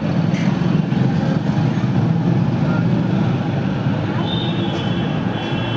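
Steady low vehicle rumble, with a high-pitched tone coming in about four and a half seconds in and holding.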